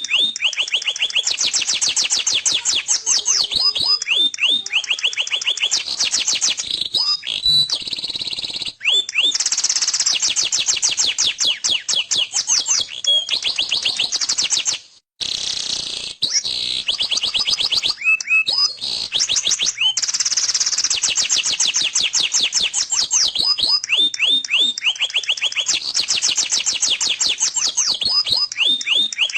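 Domestic canary singing a long song of fast rolling trills and chirps, with a brief silence about halfway through.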